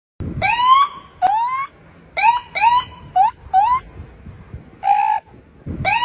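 A man imitating a police siren with his voice: a run of short rising whoops with gaps between them, and one flat held tone near the end.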